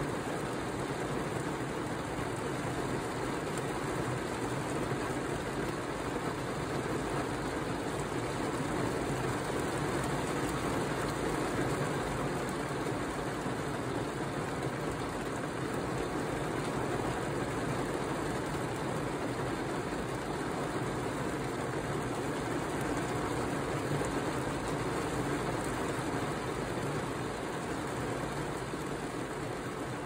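Heavy rain falling on a car's roof and windshield, heard from inside the car as a steady hiss.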